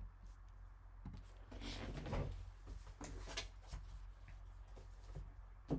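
Faint handling noise from a cardboard trading-card box being picked up and moved by gloved hands: a few soft scrapes and rustles, and a sharp click near the end.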